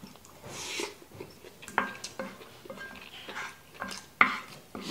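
Wooden spoon knocking and scraping against a frying pan as fried rice is scooped up: a run of sharp clicks from about a third of the way in, some with a brief metallic ring.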